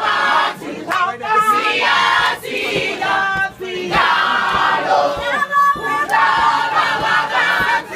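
A large group of voices singing and chanting loudly together in a choir-like ensemble, with shouts and cheers from the crowd around them.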